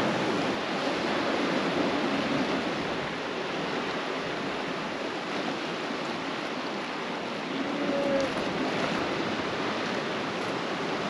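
Ocean surf washing and breaking over coastal rocks, a steady rushing hiss of water.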